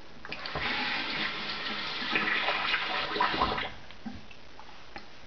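Water running from a tap with some splashing, starting just after the start and stopping about three and a half seconds in.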